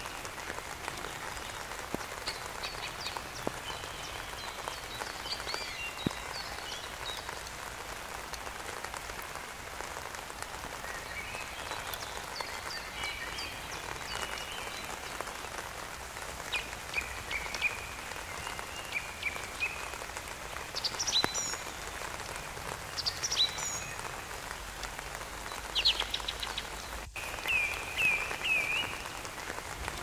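Steady rain pattering on garden plants and grass. Scattered short, high chirping calls come and go over it, some in quick runs of three or four notes.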